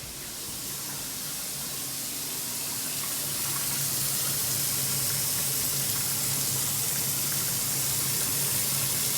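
Kitchen tap running water into a sink, the flow building over the first few seconds and then holding steady.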